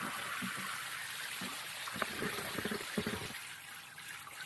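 Steady hiss of water spraying from a handheld battery-powered portable shower head, splashing onto a baby and into a shallow plastic bath tub.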